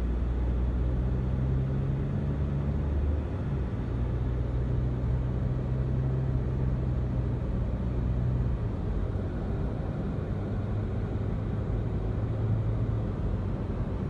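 Road noise inside a moving car's cabin: a steady low engine and drivetrain hum over tyre rumble on asphalt. The hum shifts about three seconds in and fades about eight seconds in.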